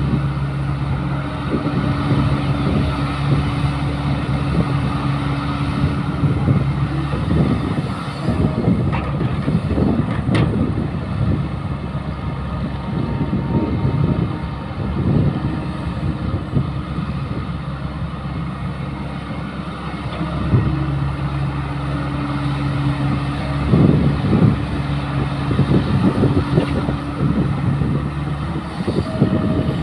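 Caterpillar E120B hydraulic excavator's diesel engine working under load as it digs soil and swings it to a dump truck. It runs steadily, with a droning tone that holds for several seconds twice and a few scattered knocks and clatter.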